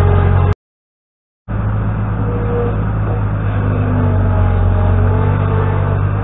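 New Holland LX665 skid steer loader's diesel engine running steadily while it works dirt. The sound drops to dead silence for about a second near the start, then the engine is back.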